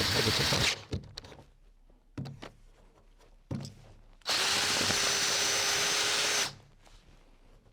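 Power drill boring the large cylinder hole through a timber gate. It runs, stops under a second in, two knocks follow, then it runs again for about two seconds and cuts off.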